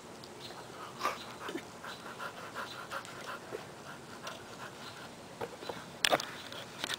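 Quick, regular panting breaths, about four a second, for a couple of seconds, then a sharp click near the end.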